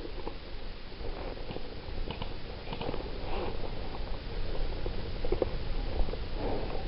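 Irregular rustling and crackling with scattered light clicks over a low rumble on the microphone.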